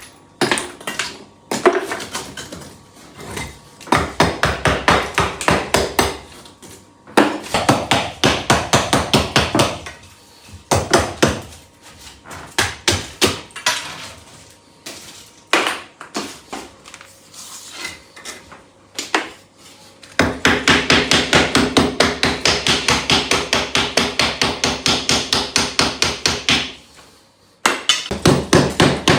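Rapid hammer blows in runs of several seconds, about four strikes a second, broken by short pauses. The longest run, from about twenty seconds in, carries a faint ringing tone under the strikes.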